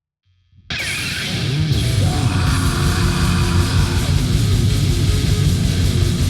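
War metal kicks in abruptly after a brief silence between tracks: dense, loud heavy metal with distorted electric guitars.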